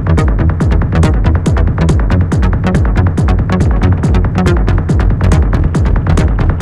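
Electronic dance music with a fast, driving beat and heavy bass.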